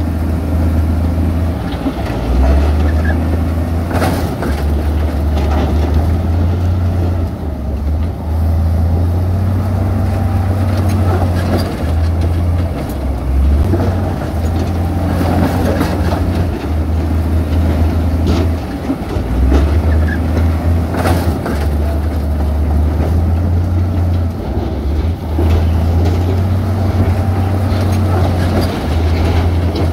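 Heavy diesel construction machinery running, with a low rumble that comes and goes in uneven gusts and a few short knocks, around 4 and 21 seconds in.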